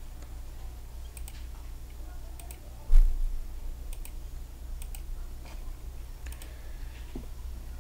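Computer mouse clicks: short sharp clicks, several in close pairs, every second or so, over a steady low hum. About three seconds in, one loud thump.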